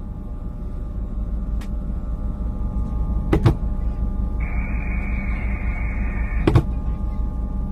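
Fishing boat's engine running steadily, with two sharp knocks, about three and six and a half seconds in, and a steady high whine lasting about two seconds between them.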